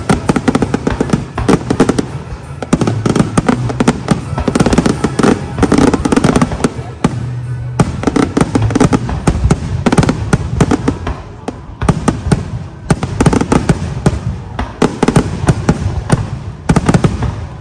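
Aerial firework shells bursting in a rapid barrage: dense, overlapping bangs and crackle, easing briefly twice.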